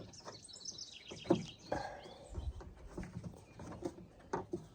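Small clicks and knocks from hands handling car door parts, with a short low thump about halfway through. A bird chirps in the background, most busily in the first second or so.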